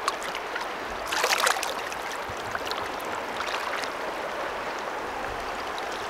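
Steady flow of a shallow river, with a brief splash of water about a second in, where a large trout held in the current is being let go.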